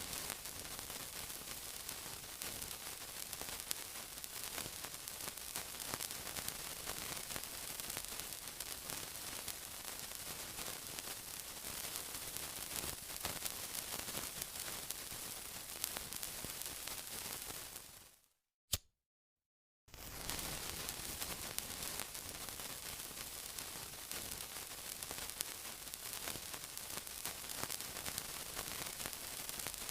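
Steady sizzling, an even hiss laced with fine crackles. About 18 seconds in it fades out, a single sharp click sounds, and after about a second and a half of silence the sizzling starts again.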